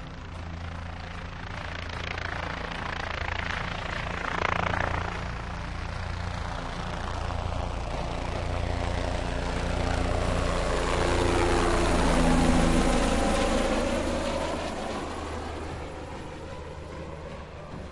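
Helicopter sound effect: a steady rotor and engine drone that grows louder, passes overhead about twelve seconds in, then fades away.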